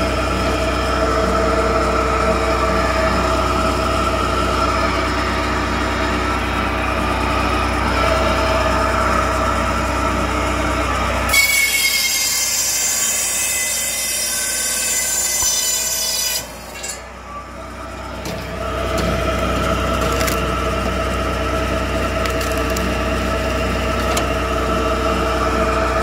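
Firewood processor running with a steady mechanical drone as its ram feeds a log. About eleven seconds in, a high screech sets in for about five seconds as the log is forced onto the splitting wedge. The sound then dips briefly before the steady drone returns.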